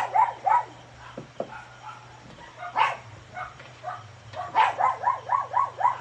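A dog barking in short barks: a few right at the start, a single one about three seconds in, then a quick run of about seven barks near the end.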